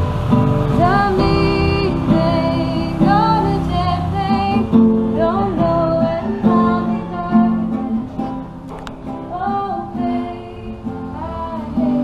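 A woman singing while she strums a nylon-string classical guitar.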